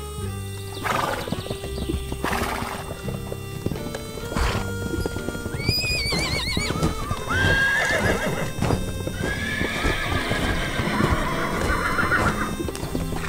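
Cartoon horse sound effects over background music: hooves clip-clopping, with a wavering whinny about six seconds in and a longer neigh after it.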